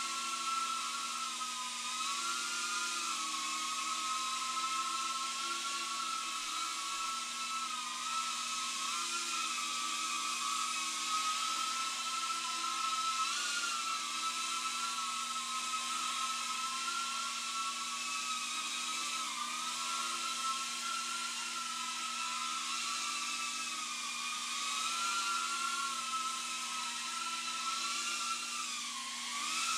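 Tiny whoop micro FPV quadcopter's motors and propellers whining steadily. The pitch wavers up and down with the throttle, and dips briefly and climbs again near the end.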